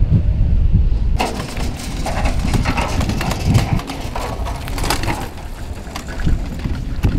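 Irregular clattering and knocking of karts on wheeled stands being pushed across the paddock, starting about a second in. Before that there is a low rumble of wind on the microphone.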